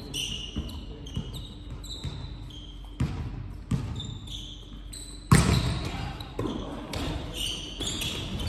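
A volleyball rally: the ball is struck by hands and arms in a string of sharp thuds, the hardest about five seconds in, with short high squeaks from sneakers on the court floor in a large gym hall.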